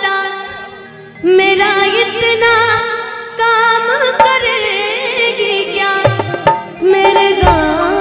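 A woman singing a slow, ornamented melody with wavering pitch into an amplified microphone over instrumental accompaniment. The singing enters about a second in, and drum strokes come in near the end.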